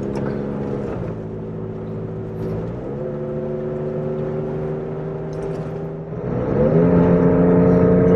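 Toyota Tacoma pickup engine accelerating hard across a dry lake bed at full throttle. Its note drops about a second in, climbs again around three seconds, and rises louder still near the end.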